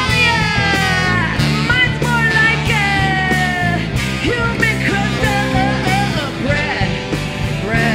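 Live rock band with bass, drums, guitar and saxophones playing; a lead line on top slides down in pitch several times.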